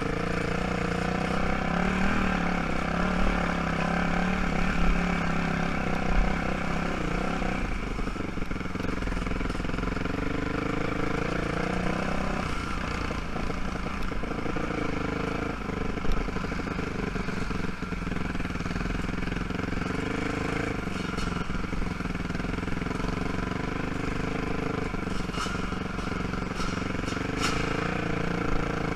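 ATV (quad) engine running at low trail speed, its pitch rising and falling gently with the throttle, over a steady low rumble.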